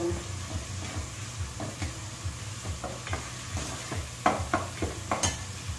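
Ground pork sautéing in a pot while a metal spoon stirs it, scraping and clinking against the pot at irregular intervals, with the sharpest knocks about four and five seconds in, over a low steady hum.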